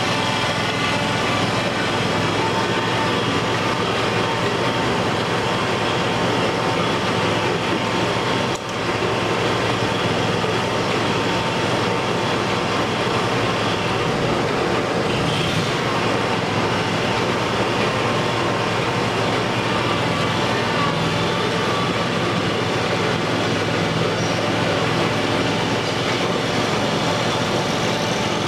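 Steady mechanical drone of a running machine, with several steady tones in it; it dips briefly about nine seconds in.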